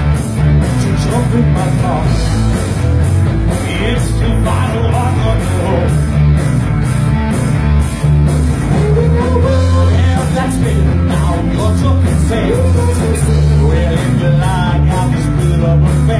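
A live rock band playing loudly: electric guitars, bass and a drum kit with steady cymbal strokes, with a lead vocal singing over them.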